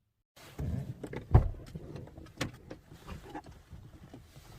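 Clicks, knocks and rustling of someone moving about inside a car, with one heavy thump about a second and a half in, then scattered small clicks.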